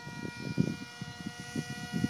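Motor of a small scratch-built RC jet-style plane in flight, giving a steady high whine, with an uneven low rumble underneath.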